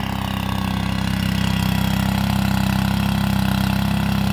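Small gasoline engine of a walk-behind lawn machine running steadily at a constant speed, with an even, rapid throb.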